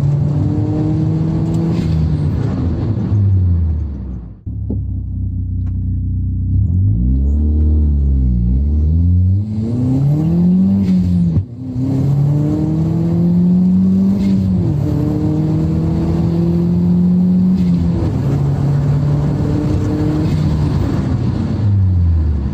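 Turbocharged Toyota 1ZZ-FE four-cylinder in a 2000 Celica GT accelerating hard, its revs climbing and dropping with the gear changes. In the middle there is a steadier low rumble followed by several quick revs up and down. The sound breaks off abruptly twice.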